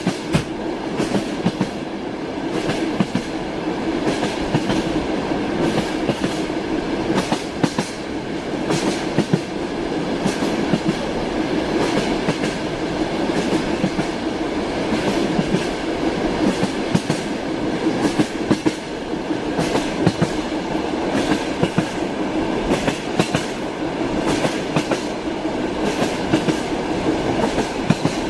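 Railway carriage wheels clacking over rail joints: a steady rolling rumble with repeated sharp clacks at uneven spacing, the clickety-clack of a moving train.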